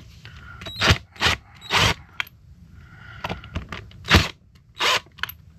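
Metal tools and parts handled on a workbench during outboard reed-pedestal disassembly: five short clanks and scrapes, three in the first two seconds and two more later on.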